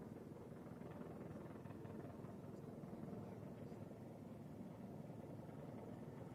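Helicopter flying low overhead, a steady low rumble from its rotor and engines.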